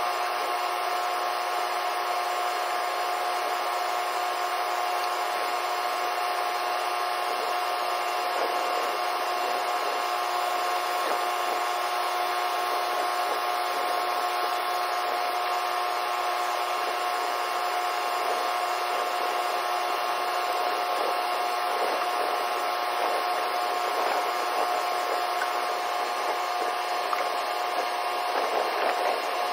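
Steady machinery hum with a constant mid-pitched tone and a few fainter fixed tones over a hiss, unchanging throughout.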